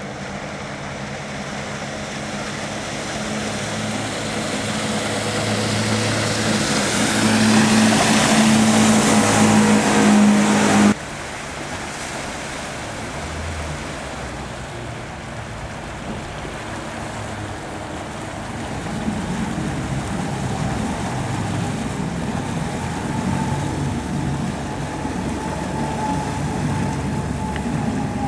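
Twin outboard motors on a small catamaran motorboat running at speed, with the rush of spray and wash from the hulls. The sound swells as the boat comes on, drops suddenly about eleven seconds in, then builds again in the second half.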